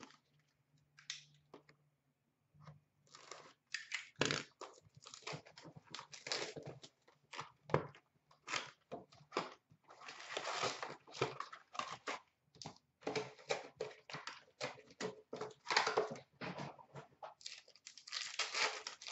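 Upper Deck Artifacts hockey card box being opened and its foil card packs torn and crinkled open by hand. It starts with a few scattered crackles, then becomes a busy run of sharp tearing and crinkling rustles from about three seconds in.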